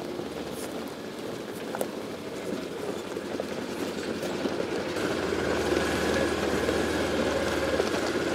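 Side-by-side utility vehicle driving slowly over a rough dirt track, its engine running with a low hum and its body clattering and rattling over the bumps. It grows louder about five seconds in as it pulls up close.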